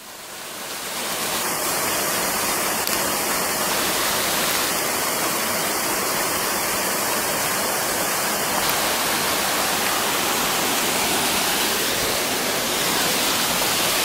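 Steady rush of a small waterfall plunging into its pool, with the rocky stream below it running, fading in over the first second or so.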